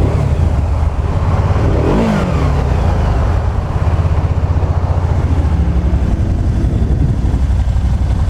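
The 998cc Rotax V-twin of a 2011 Can-Am Spyder RT idling, with one quick blip of the throttle that rises and falls in pitch about two seconds in.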